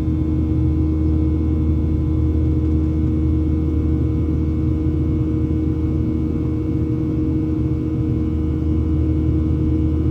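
Steady cabin drone of a Boeing 737-800 in flight, heard inside the cabin: the CFM56-7B engines and the rushing air make a low rumble with a few steady hum tones above it.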